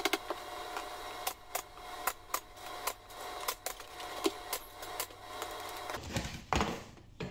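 Pneumatic pin nailer firing pins through toe-kick boards into the cabinet base: a dozen or more sharp snaps at an uneven pace, about two a second. About six seconds in the snapping stops and a couple of duller knocks follow.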